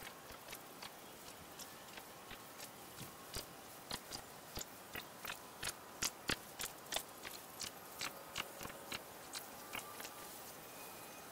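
A regular series of light ticks, about three a second, growing louder toward the middle and fading near the end.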